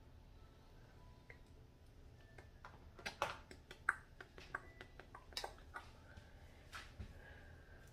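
A run of sharp clicks and light taps from small makeup items being handled, about a dozen over some four seconds, starting a couple of seconds in.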